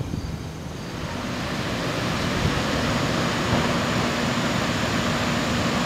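Flood-swollen river water pouring over a dam spillway: a steady rush of water that swells up about a second in after a short click.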